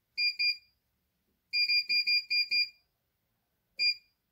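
Keypad beeps from the CNY E900 embroidery machine's control panel, one short identical beep for each button press. There are two near the start, a quick run of about six in the middle and one more near the end, each with a faint click of the button.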